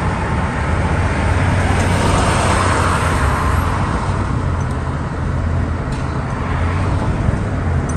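Steady road noise and a low engine drone heard from inside a moving vehicle, with a swell of louder traffic rush about two to three seconds in.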